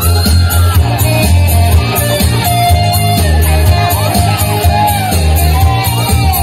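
Loud dance music played through stage PA speakers, with a singing voice over a heavy, steady bass.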